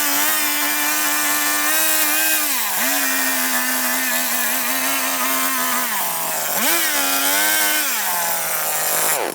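Chainsaw running at high revs while carving wood. Its pitch sags as the chain loads up in the cut, about three seconds in and again around six seconds, then climbs again. The sound cuts off suddenly near the end.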